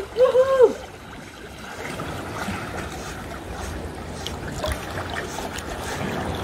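Water gently splashing and lapping as a dog paddles through a calm sea pool. A short high-pitched vocal call sounds right at the start.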